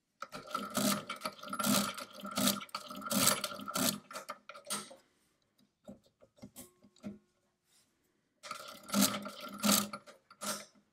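Brunsviga Nova 10 mechanical calculator being hand-cranked to multiply 25 by 25. There is a run of about five crank turns, its gears and ratchets clattering with a clunk on each turn. Then come a few light clicks as the carriage is shifted, and two or three more turns near the end.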